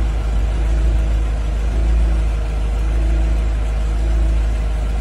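Engine of a truck-mounted aerial work platform running steadily while its bucket boom lifts, with a deep rumble underneath.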